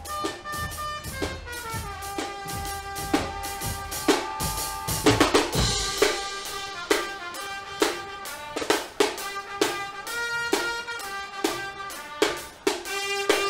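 Guggenmusik brass band playing: trumpets, trombones and sousaphone hold brassy chords over a steady beat of bass drums, snare drums and cymbals. A loud flurry of drumming with a cymbal crash comes about five seconds in.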